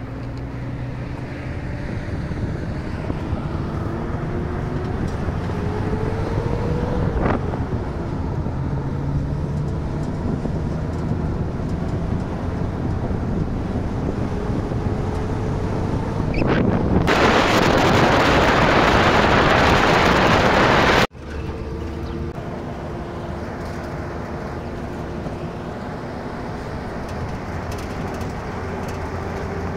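A vehicle engine running while driving. Its pitch rises as it accelerates and drops at a gear change about seven seconds in. A loud rushing noise of wind on the microphone comes in near the middle, then cuts off suddenly, and the engine runs on steadily.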